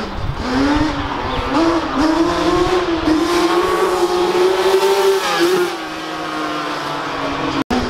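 Yamaha Banshee quad's two-stroke twin engine revving as it is ridden. The pitch climbs for a few seconds, drops about five and a half seconds in, and starts climbing again near the end.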